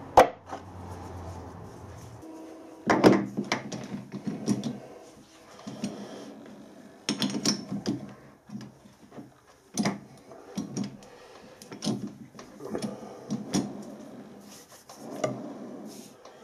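Reverse jaws being fitted into a steel three-jaw lathe chuck and a steel blank seated in them: sharp metal clicks and clunks every two to three seconds as the jaws go into their slots and the chuck key turns the scroll, with scraping and rattling in between.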